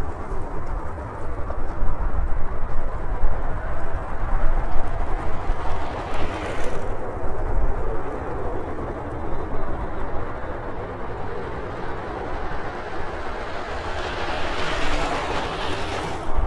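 Boeing 737-800 airliner running, a steady dense rumble of jet engine and air noise. It swells briefly with a brighter hiss about six seconds in and again near the end.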